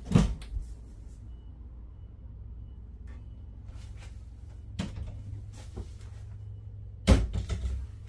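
Cabinet doors being swung and shut, each giving a sharp knock or clack. There is a loud knock right at the start, a smaller one about five seconds in, and a loud clatter of several knocks a little after seven seconds, all over a steady low hum.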